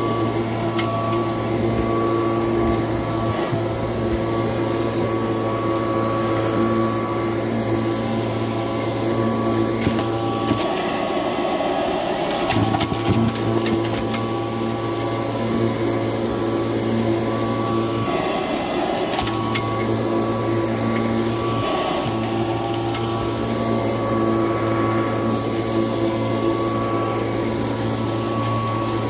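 Kirby Heritage II upright vacuum cleaner running steadily, its motor hum and fan whine with lots of crunch: debris picked up off the rug crackling through the fan as frequent sharp clicks. The hum breaks a few times with a short rush of air as the vacuum is pushed over the rug.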